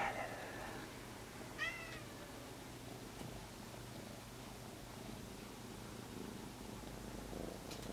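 A cat meowing in a tiny, high-pitched voice: two short meows, one right at the start and a second, falling slightly in pitch, about a second and a half later.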